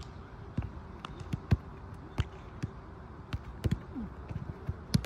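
A football being touched and kicked on artificial turf: a series of irregular, short, soft thuds.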